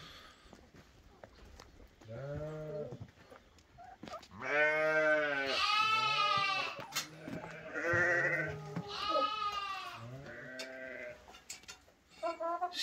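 Sheep bleating, about six calls one after another, some deep and some high.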